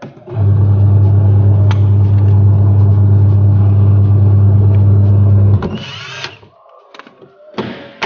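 Cordless drill driving screws to fasten the plastic back panel of a twin-tub washing machine. It runs steadily for about five seconds, gives a short burst with a rising whine, and starts again at the end.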